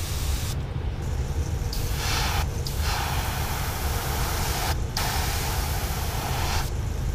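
Gravity-feed airbrush spraying paint in four hissing bursts with short pauses between them, as the trigger is pressed and eased off while a stripe is laid along a lure body. A steady low hum runs underneath.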